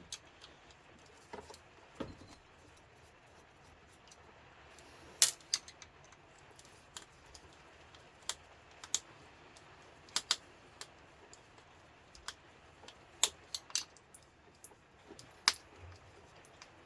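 Scattered sharp clicks and snips of cutters and metal tools handled while the plug is cut off a mains power cord, the loudest about five seconds in.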